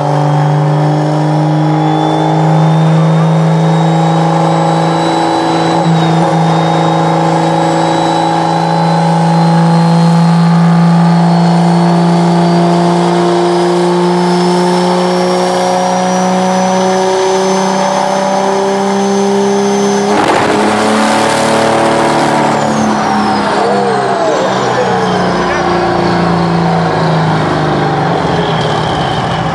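Dodge Ram's Cummins turbo-diesel at full throttle on a chassis dyno: a steady engine drone under a turbo whistle that slowly climbs in pitch. About twenty seconds in there is a sudden loud noise as the engine fails, and the whistle then winds down in pitch while the engine bay catches fire.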